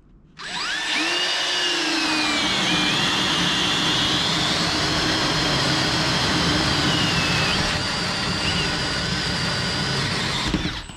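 Cordless drills, a Milwaukee M18 FPD2 and a DeWalt 18 V, boring 65 mm Forstner bits into chipboard. The motors whine steadily after speeding up about half a second in, the pitch sagging a little as the bits bite. They stop shortly before the end.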